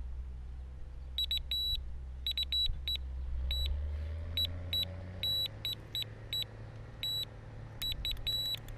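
Electronic carp bite alarm beeping: single and double bleeps at uneven intervals from about a second in, then quickening into a rapid run of beeps near the end as a fish takes the zig-rig bait and pulls line.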